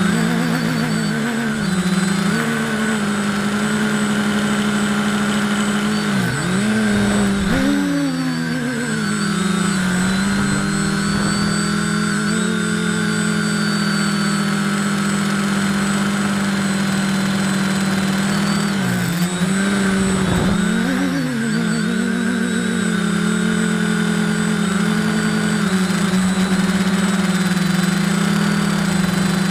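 Electric motors and propellers of a small radio-controlled drone, heard from its onboard camera: a steady, loud buzz made of several close tones. The pitch dips and swings back up twice, about six to nine seconds in and again around nineteen to twenty-two seconds in.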